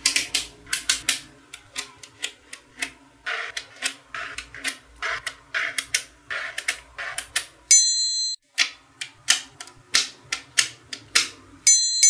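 Small neodymium magnet balls clicking and snapping together in quick clusters of sharp clicks as rows are pressed and joined. Twice a bright, high chime rings, about two-thirds of the way through and again near the end.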